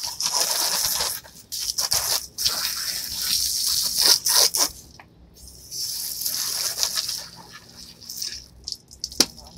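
Garden hose spray nozzle hissing as it jets water onto plastic patio chairs. The spray comes in bursts, pauses about five seconds in, starts again, then dies away about two-thirds of the way through. A single sharp click comes near the end.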